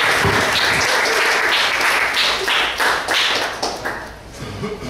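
Audience applauding a stand-up comedian at the end of his set, dying away about four seconds in.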